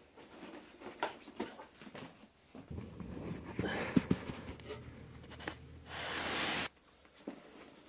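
Handling noises: rustling, scraping and light knocks as someone rummages on a carpeted floor and handles clothing, with a sharp hiss about six seconds in that cuts off suddenly.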